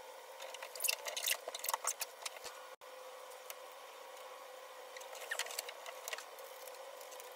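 Crinkling and crackling of the paper and tape carrier on a strip of adhesive car lettering as it is handled, lined up and pressed down by hand. It comes in two bunches, the first longer, over a faint steady hum.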